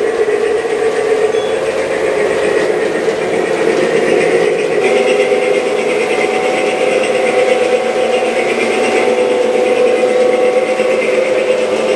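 G-scale model train with a diesel locomotive running along its track: a steady mechanical whir of motors, gears and wheels on the rails, its higher part getting a little louder about halfway through.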